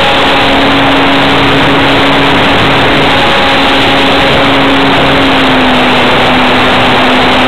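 Electric RC model plane heard from its own onboard camera in flight: loud wind rush over the microphone with a steady motor-and-propeller hum, which drops slightly in pitch about halfway through.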